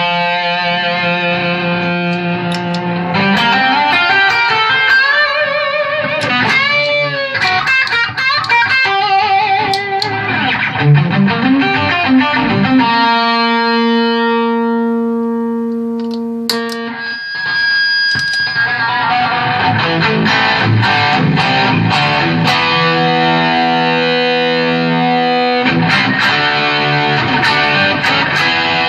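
Electric guitar, a Gibson Les Paul Special with P90 pickups, played through a Visual Sound Route 66 V3 overdrive/compressor pedal into a 1978 Fender Pro Reverb amp. The playing is phrases of notes and chords, with a bent, wavering note early on. In the middle a long chord rings and fades, is cut off suddenly, and then the playing resumes.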